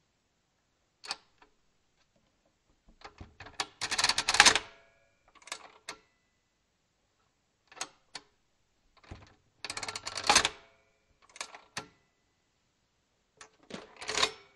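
Walther WSR 16 mechanical calculator's registers being cleared to zero: bursts of sharp mechanical clicking and rattling as the number wheels are spun back, with single clicks between. The biggest bursts come about four and ten seconds in, and another starts near the end.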